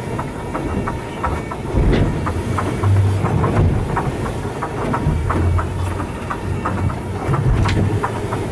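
Boat moving through choppy sea: a steady low rumble of wind and motor, with water slapping the hull and spray spattering in frequent irregular clicks.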